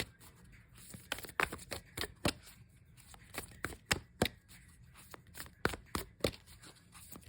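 A deck of oracle cards being shuffled by hand: irregular sharp taps and slaps of cards, one to three a second.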